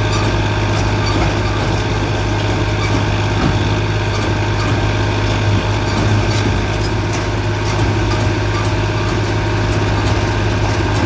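Straw baling press machine running with a steady, loud mechanical hum and faint intermittent ticks.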